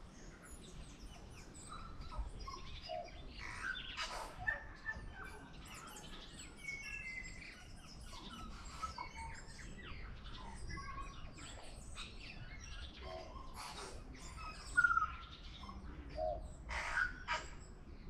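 Tui singing: a varied string of short whistled notes, glides, clicks and harsh notes. The loudest burst comes about fifteen seconds in.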